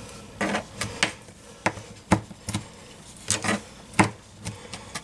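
Small paring knife chopping capers on a plastic cutting board: a dozen or so irregular knocks of the blade against the board.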